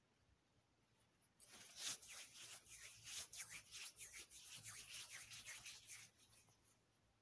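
Rapid, irregular scratching and rubbing strokes, starting about a second and a half in and stopping about six seconds in.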